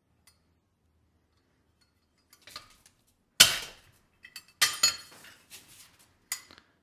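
Several sharp metallic clanks and clinks of a Zippo lighter's steel case being knocked against a hard surface, with a few seconds' gap between hits. The hits are roughing and denting the case to fake drop damage. The loudest comes about halfway through.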